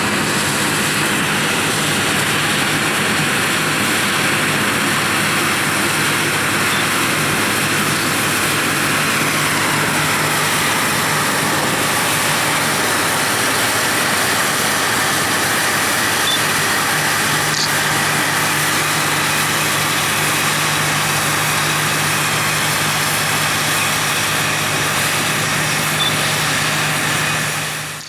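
Harvest machinery running steadily: a diesel engine's low, even hum under a loud mechanical whirr. It cuts off abruptly at the very end.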